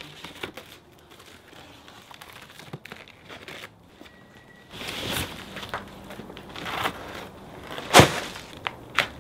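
Large cardboard shipping carton being tipped over and opened: cardboard scraping and rustling, then a sharp thump about eight seconds in and a smaller one just after.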